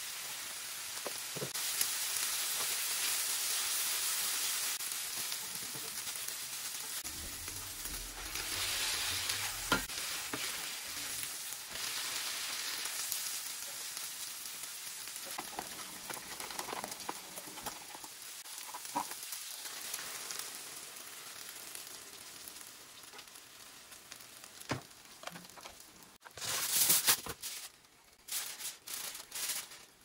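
Shredded chicken, shimeji mushrooms and green onion sizzling steadily in a frying pan. Near the end there is a short run of loud crinkling, from a sheet of aluminium foil being laid over the pan.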